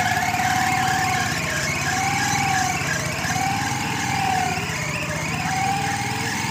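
A siren-like tone that wavers up and down about every two seconds, over the steady running of a small engine, likely the rail motor trolley's.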